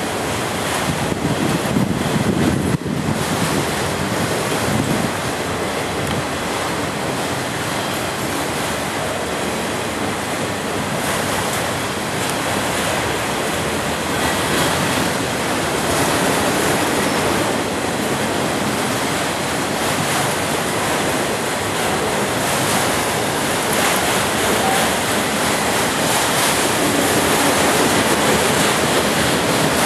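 CSX autorack freight cars rolling past close by: a steady rush of steel wheels on rail, with some wind on the microphone.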